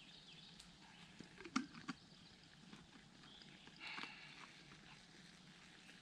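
Near silence in a quiet wood: faint outdoor room tone, with two small clicks about a second and a half in and a brief soft rustle around four seconds.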